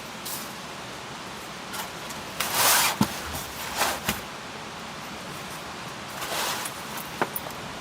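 Several short rustling swishes and a few sharp clicks, like gear being handled, over a steady hiss; the loudest swish comes a little over two seconds in.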